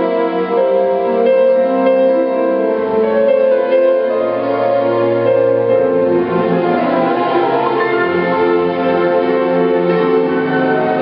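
A string orchestra playing classical music live together with a grand piano, as in a piano concerto: held bowed notes and moving lines over a bass line.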